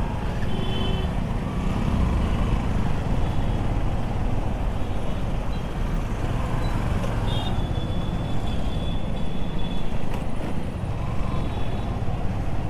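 Motorcycle riding slowly in city traffic: a steady low rumble of its engine and the road, with the surrounding traffic noise of other motorcycles and auto-rickshaws.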